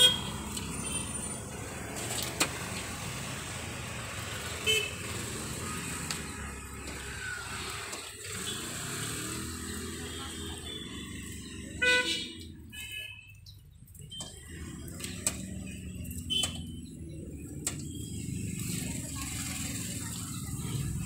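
Steady traffic hum with short vehicle-horn toots, the loudest about twelve seconds in, and a few light clicks of motorcycle wiring connectors being handled.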